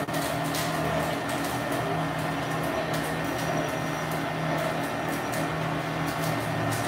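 Electric bakso (meatball) dough machine running steadily: a constant motor hum with several held tones, with sharp ticks coming at irregular intervals on top.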